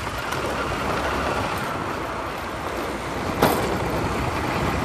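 Scooter on the move: a steady engine hum under rushing wind and road noise on the microphone, with one brief knock about three and a half seconds in.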